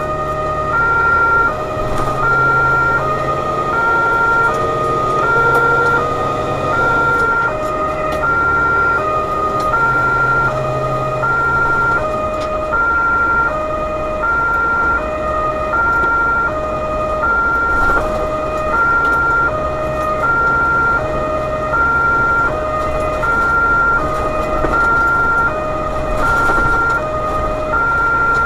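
German two-tone emergency siren (Martinshorn) sounding its high and low notes in steady alternation, changing note about every three quarters of a second, heard from inside the emergency truck over its engine and road noise.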